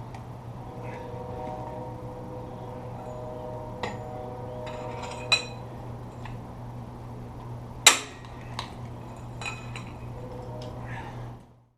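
Scattered metallic clinks and knocks of hand tools on metal engine parts, one sharper knock about 8 seconds in, over a steady low hum.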